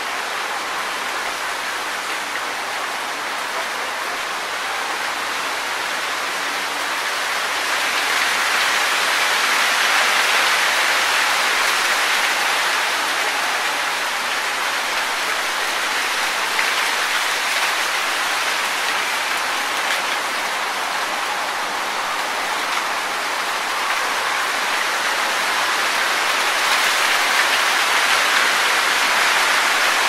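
Wind rustling through tree leaves: a steady hiss that swells with gusts about ten seconds in and again near the end.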